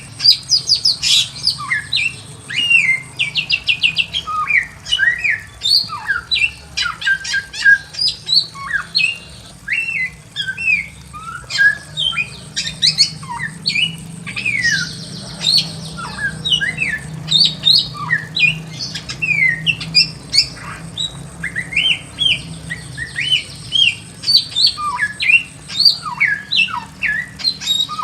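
Bare-throated whistler (samyong) singing a long, varied song of quick rising and falling whistled notes with short rapid trills, the phrases following one another with hardly a pause.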